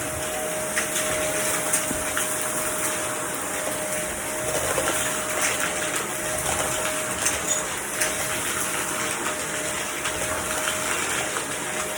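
Vacuum cleaner running steadily: a broad rushing of air with a steady motor whine, and a few faint clicks.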